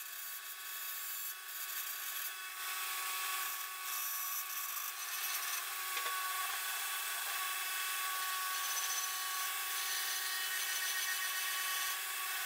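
An angle grinder drives a flexible shaft with a steady, multi-pitched whine. A pear-shaped rotary burr in the shaft's handpiece grinds into wood at first, then spins free once it is lifted away.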